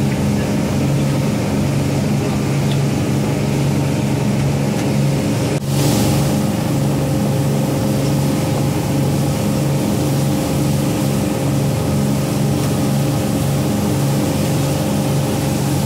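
Party boat's engine running with a steady, even drone, and a brief dip about five and a half seconds in.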